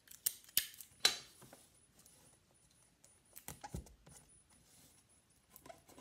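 Pieces of tape being handled and pressed onto a paper-covered carton: a few sharp crackles and taps, the loudest about a second in, with quiet rustling between and a second cluster past the middle.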